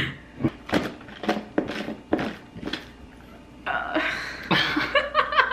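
A string of sharp plastic clicks and knocks, about three a second, as the blade base is twisted onto a personal blender cup filled with juice and ice. Low voices come in for the last couple of seconds.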